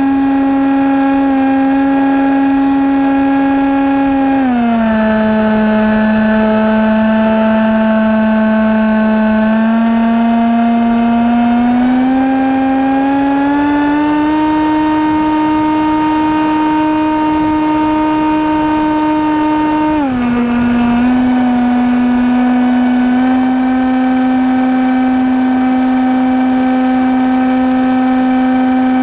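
The motor and propeller of a model airplane whine steadily, heard from the camera on board, with a rush of wind underneath. The pitch drops as the throttle is eased about four seconds in, climbs back up over several seconds, and drops again about two-thirds of the way through.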